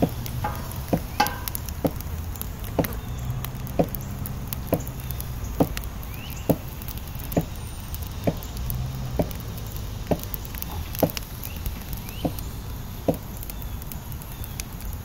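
Regular short knocks, a little under one a second, over a low steady rumble.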